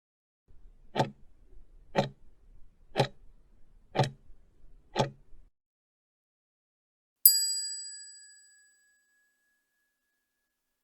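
Countdown timer sound effect: five clock ticks one second apart, then a single bell ding that rings out and fades.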